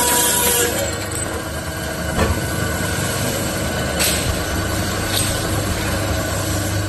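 CNC automatic pipe cutting machine running, a steady low hum with a high whine that stops under a second in, and three sharp knocks spread through the rest.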